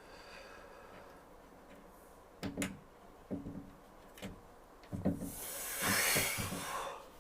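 Handling noise: a few light knocks and clicks, then a rustling hiss lasting about a second and a half near the end.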